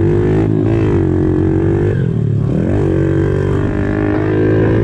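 Small 110cc four-stroke pit bike engine heard on board while riding a dirt track, its pitch rising and falling with the throttle; it drops off about two and a half seconds in, then climbs again.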